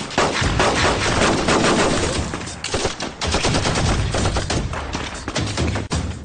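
Heavy gunfire from several guns: rapid shots overlapping into a near-continuous volley, with brief lulls about two and a half seconds in and near the end.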